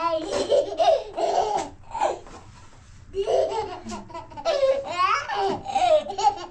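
Laughter and lively chatter in high-pitched voices, with a brief lull about halfway.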